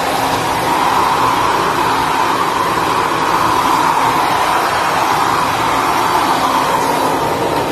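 Handheld hair dryer running steadily as it blows a long-haired cat's wet fur dry: a constant loud whoosh with a steady whine in it.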